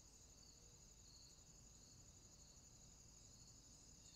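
Near silence with faint, steady, high-pitched insect chirring in the background and a softer pulsing note beneath it.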